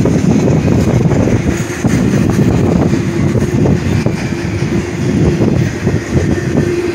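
Double-stack intermodal container freight train rolling through a grade crossing: a loud, steady rumble of wheels on rail, with rapid clatter running through it.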